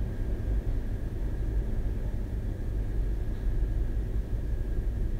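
Steady low rumbling background noise, unchanging, with a faint steady high tone over it.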